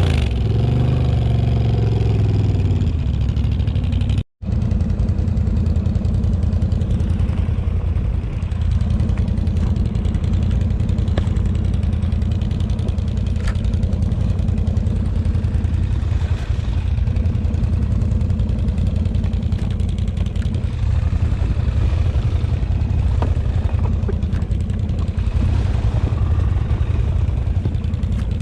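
ATV engine running with a steady low drone, its revs falling in the first couple of seconds. The sound cuts out completely for a moment about four seconds in, then the drone continues.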